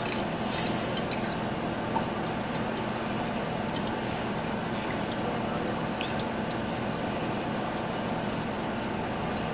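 Broth being pressed and stirred through a fine-mesh metal strainer with a silicone spoon, liquid sloshing and dripping into the stainless pot below, with a couple of faint ticks of the spoon against the mesh. A steady low hum runs underneath.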